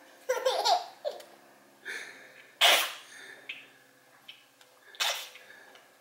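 A baby laughing and squealing: a short pitched giggle at the start, then sharp breathy bursts of laughter, the loudest about halfway through and another near the end.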